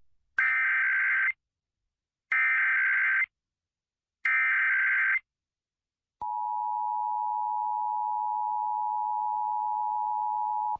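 Emergency Alert System tones: three one-second stretches of the SAME digital header's data tone, about two seconds apart, which encode the alert, here a required monthly test. About six seconds in, the steady two-tone EAS attention signal (853 and 960 Hz) starts.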